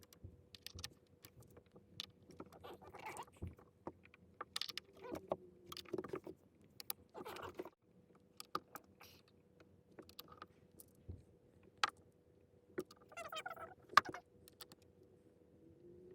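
Scattered clicks, knocks and light clatter of small hard objects being handled and set down, irregular and sparse, over a faint steady hum.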